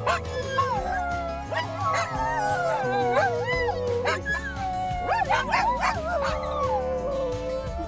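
Two dogs in a car whining and howling excitedly, long wavering cries broken by a few sharp yips and barks.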